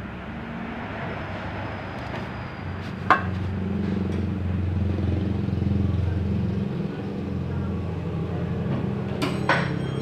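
A motor vehicle engine running steadily, swelling a little in the middle, with a sharp metallic click about three seconds in and two more near the end.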